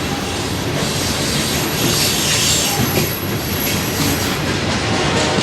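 Long freight train passing close by: a steady, loud rumble and clatter of steel wheels on the rails, with a faint high wheel squeal.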